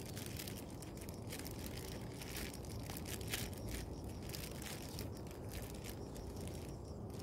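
A fruit-wrapping bag crinkling and rustling in many short, irregular crackles as it is wrapped around a young mango fruit on the tree.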